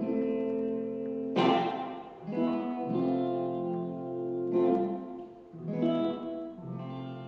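Acoustic guitar strummed chords ending a song: about six strums spaced a second or so apart, each chord left to ring, the last one fading out.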